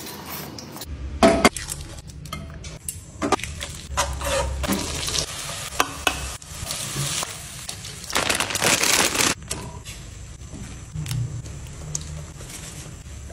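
Kitchen cooking sounds: a metal spoon scraping and knocking against a non-stick frying pan and a plate, with sharp clinks, the loudest a pair about a second in. Food sizzles in the pan, with a louder rush of sizzle for about a second around eight seconds in.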